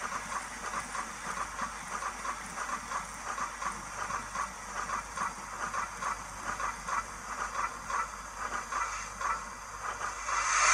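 Digital steam-locomotive sound from a YouChoos Zimo decoder in a Hornby LNER A4 model, played through the model's small speaker: a steady run of exhaust chuffs. Near the end a louder steam hiss swells up.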